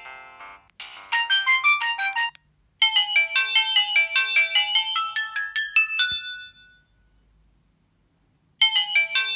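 Samsung GT-E1170 mobile phone playing its built-in polyphonic melody ringtones one after another. A short bright tune stops, and after a brief pause a longer chiming tune plays. That tune ends with a click about six seconds in and dies away, and after a couple of seconds of silence the next ringtone begins near the end.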